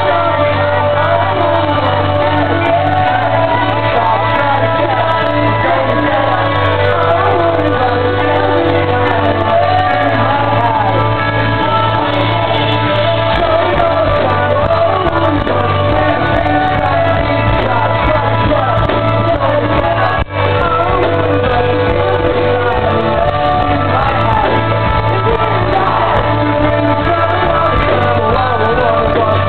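Pop-punk band playing live in a hall, loud and steady, with sung and shouted vocals. The sound drops out very briefly about twenty seconds in.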